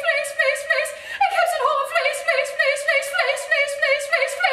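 A woman singing unaccompanied in a high soprano voice, a passage from a newly composed opera. She sings many short notes in quick succession.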